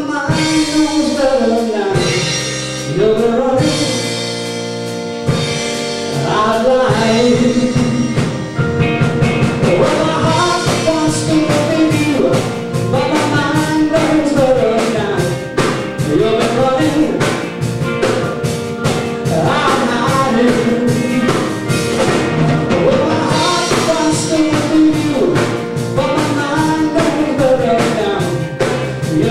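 Live band performing a soft-rock song: lead vocals with harmony over electric guitar, electric bass, keyboard and drum kit.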